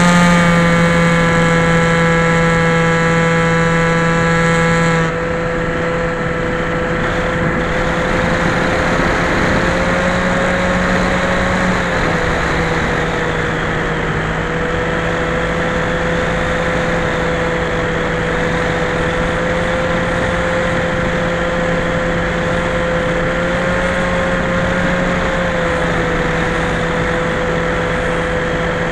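Skyhunter FPV model plane's electric motor and propeller running steadily under a rush of noise. The sound drops a little and loses its upper overtones about five seconds in as the throttle eases, and the pitch shifts slightly a couple of times after that.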